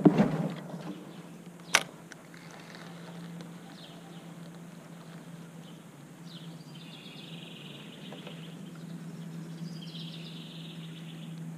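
Spinning fishing reel being cranked to retrieve a small spinner, heard as two stretches of fine rapid whirring, over a steady low hum. A loud handling knock right at the start and a sharp click a couple of seconds in.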